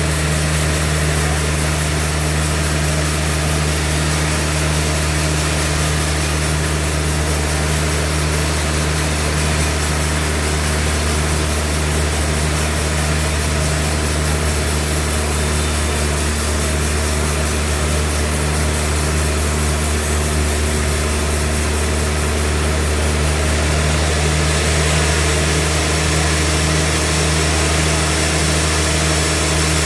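Sawmill engine running steadily at a constant speed, with a deep hum that does not change.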